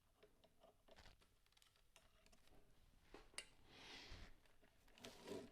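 Faint clicks and light taps of small metal phonograph parts and a screwdriver being handled, with a sharper click a little past three seconds and a brief scrape around four seconds in.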